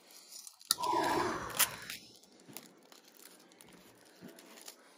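Plastic shrink wrap being torn off a DVD box set: a loud rip with sharp snaps lasting about a second, starting just under a second in, then faint crinkling of the loose wrap.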